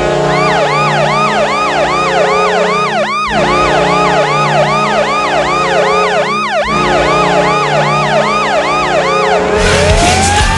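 Washington Capitals goal horn: a deep, several-toned horn sounding in three long blasts, each about three seconds, with a wailing siren that sweeps down about two and a half times a second. Near the end the horn gives way to the goal song, music with a heavy beat and a rising glide.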